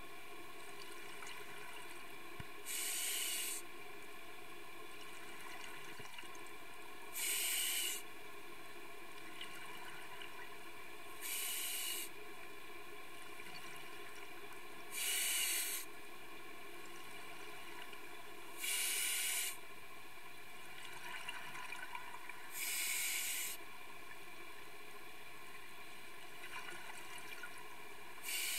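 Scuba diver breathing through a regulator underwater: each exhalation releases a rush of hissing bubbles lasting about a second, seven times at roughly four-second intervals, over a steady faint background hum.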